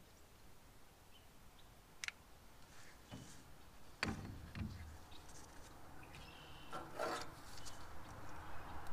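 A sharp click about two seconds in, a knock about four seconds in and a brief rattling scrape about seven seconds in, over a faint low hum.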